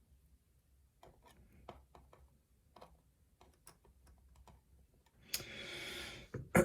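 Faint, scattered clicks of small brass lock pins and springs being handled, with a brief rustle near the end.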